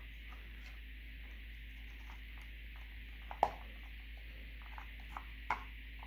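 Small screwdriver blade prying at the plastic clips of a car's blend door actuator housing: faint scraping and ticking with a few sharp plastic clicks, the loudest about three and a half seconds in and another about five and a half seconds in.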